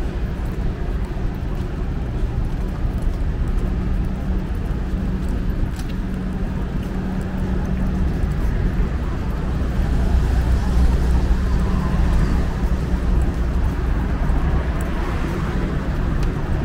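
City street traffic: cars driving past with a steady low engine hum, growing a little louder about ten seconds in.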